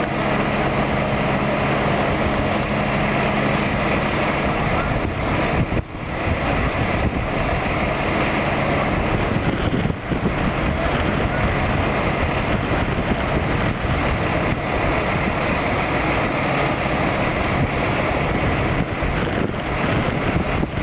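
Heavy-vehicle engine running steadily under a loud wash of wind on the microphone. The engine's low hum is clearest in the first few seconds, then fades into the wind noise.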